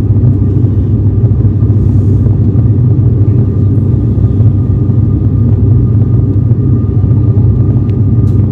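ATR 72-600 turboprop airliner heard from inside the cabin in flight: the steady low drone of its propellers and engines, with a faint thin whine above it.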